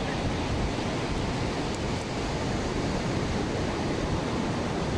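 Steady rush of ocean surf breaking on a sandy beach, mixed with wind.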